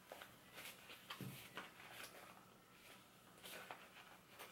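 Near silence, with faint scattered clicks and rustles of a plastic exhalation valve being twisted and locked onto a fabric dust mask.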